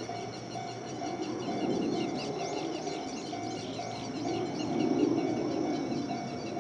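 Wild birds chirping rapidly in many quick calls, busiest about two to three seconds in, over a low outdoor rumble. A mid-pitched tone pulses on and off throughout.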